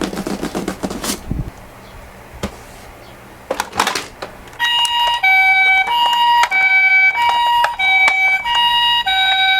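Several toy ambulances' electronic two-tone sirens sound over one another from about halfway in, each stepping between a high and a low note. Earlier there is a rattling clatter of small toy cars in the first second and a brief clack about four seconds in.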